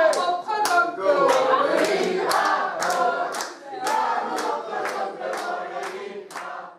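A group of people singing together and clapping along in rhythm, about three claps a second. It fades out near the end.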